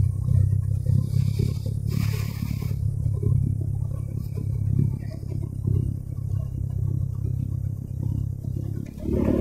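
Motorcycle running on a steep downhill road: a steady low rumble, with a brief hiss about two seconds in.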